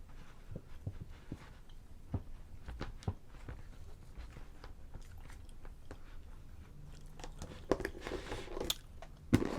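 Close-miked mouth sounds of a person finishing a meal and drinking water: a scatter of soft wet clicks and smacks that grows louder near the end.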